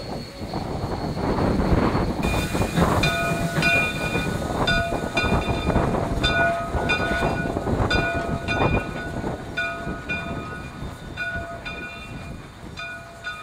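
Steam locomotive bell ringing over and over, about twice a second, above the engine's rumble and hiss; the ringing starts a couple of seconds in and the sound fades towards the end.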